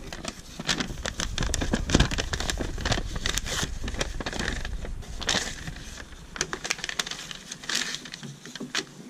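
Paper instruction booklet being bent, turned and pressed flat by cloth-gloved hands: crinkling and rustling with many small clicks and some low thumps, loudest about two seconds in and thinning out near the end.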